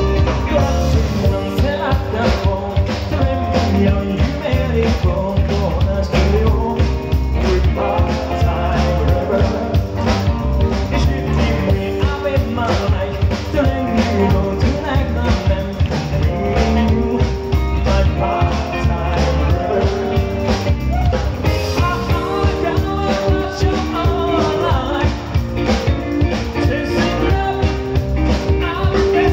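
Live band playing an upbeat song with a steady beat: a singer singing into a microphone over drums, electric bass, keyboard and a horn section of saxophones and trumpet.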